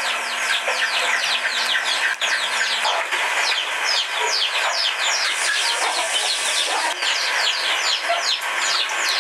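Chicks peeping: many short, high, downward-sliding peeps overlapping in an unbroken stream.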